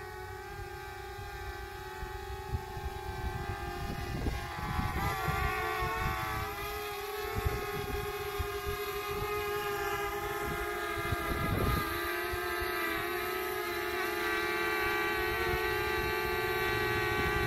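Small quadcopter drone flying with a steady propeller whine, its pitch shifting slightly as it maneuvers and growing louder as it comes closer. Gusts of wind rumble on the microphone.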